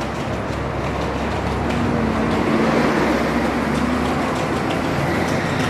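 A road vehicle passing on the street. Its engine and tyre noise swells to a peak about halfway through, then eases off.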